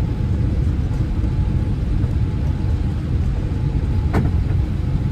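Steady low rumble of a moving vehicle, heard from inside it.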